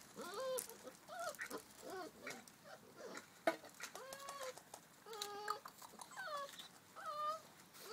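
Five-week-old puppies whining and yelping while they wrestle in play: a run of short, high, squeaky cries that rise and fall, with scattered clicks and one sharp click about halfway through.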